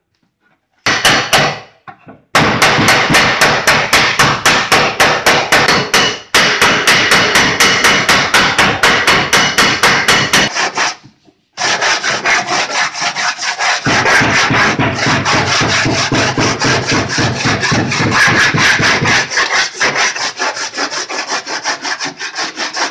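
Hand sanding of a car's front fender: quick back-and-forth rubbing strokes, about five a second, scraping the paint and filler down. The strokes pause briefly about ten seconds in, then go on.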